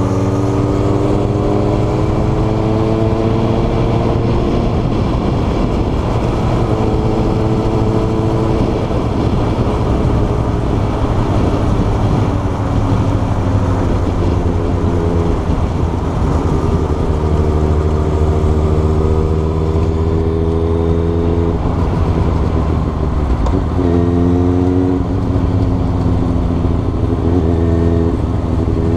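Motorcycle engine running under way, its pitch climbing steadily through each gear and dropping back at several gear changes.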